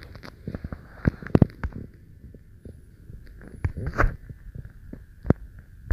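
Irregular soft thumps and clicks of fingers tapping and handling a phone, picked up by the phone's own microphone. There are clusters about a second and a half in and about four seconds in, over a faint steady hum.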